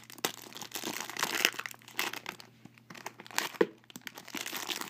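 Thin clear plastic bag crinkling in irregular crackles as a 3x3 speed cube is unwrapped by hand, with one sharper crackle about three and a half seconds in.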